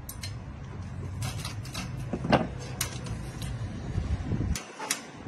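Scattered light clicks and taps from a band saw blade sharpener being adjusted by hand, its motor switched off, over a steady low rumble that cuts off suddenly near the end.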